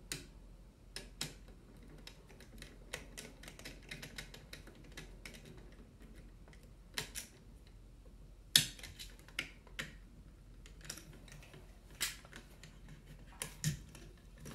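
Screwdriver turning and tightening the terminal screws on a wall dimmer switch: a faint run of small clicks and ticks, with a sharper click about eight and a half seconds in.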